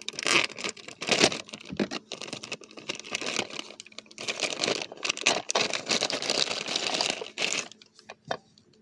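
Thin plastic bag of a Happy Meal toy crinkling and rustling as the figure is worked out of it. The rustling stops about a second before the end, leaving a few faint clicks.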